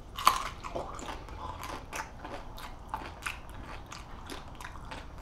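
A person bites into something crunchy with one sharp crunch about a quarter second in. Then comes loud open-mouthed chewing, a crackling crunch every third of a second or so.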